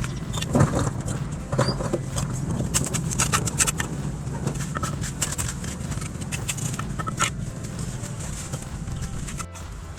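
Construction work noise: irregular sharp knocks and clatter over a steady low hum.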